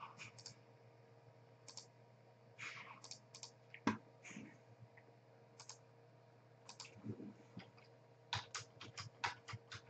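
Faint computer keyboard typing and mouse clicks: scattered clicks, then a quick run of about eight keystrokes near the end as the letters b, c, b, c are typed in, over a faint steady hum.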